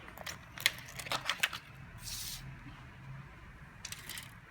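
Small clicks and crackles of a thin LCD panel and its backlight being handled and pried apart, with a short rasp of adhesive film peeling about two seconds in.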